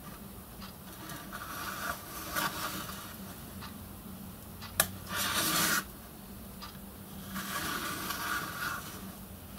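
A pencil is drawn along the edge of a steel square across brass sheet to mark out lines, giving three scratchy strokes. The middle stroke, about five seconds in, is the loudest and comes just after a sharp click.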